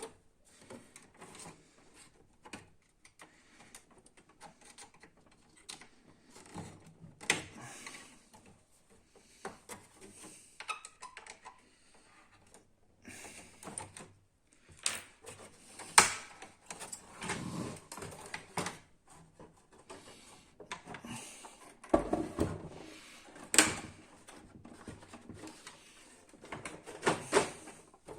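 Plastic clicks, snaps and knocks from the casing of a Canon MF4410 laser printer as its front panel is unlatched from below and pulled off. The clicks come at irregular moments with soft handling noise between, the sharpest about halfway through and again a few seconds later.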